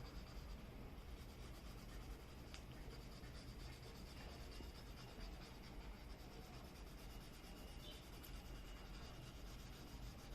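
Faint, steady rubbing of a paper blending stump across drawing paper as graphite shading is smoothed out, over a low steady hum.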